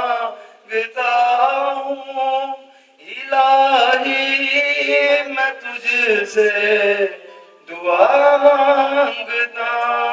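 A man singing an Urdu devotional naat into a microphone, unaccompanied, in long drawn-out phrases with short breaks for breath.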